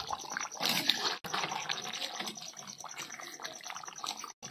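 Chicken curry bubbling and simmering in a kadhai over a wood fire, cooked and ready to come off the heat. The sound cuts out briefly twice.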